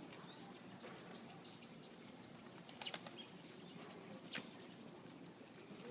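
Pigeons' wings flapping, with small birds chirping over a faint outdoor background; a few sharp claps come about three seconds in and once more about a second later.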